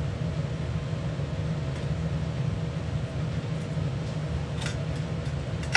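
Steady low machine hum with a faint constant whine above it, and a few faint light clicks near the end.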